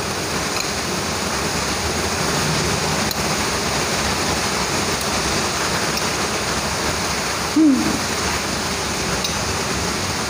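Heavy rain falling steadily, a dense, even hiss, in strong wind. About seven and a half seconds in, a single short cry falling in pitch cuts through.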